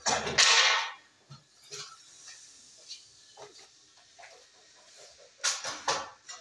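Work-handling noises on a wooden door: a loud scrape through the first second, then a few scattered faint knocks and a quick cluster of sharp knocks near the end. No saw is running.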